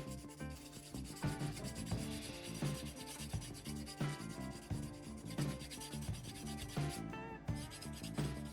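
Knife blade rubbed against an abrasive in repeated sharpening strokes, with background music playing.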